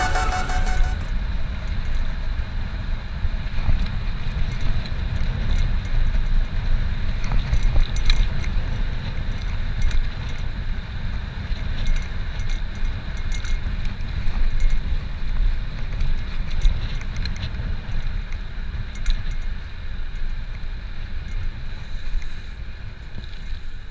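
Wind rumble on the microphone while riding a bicycle, with light rattling and scattered ticks over it.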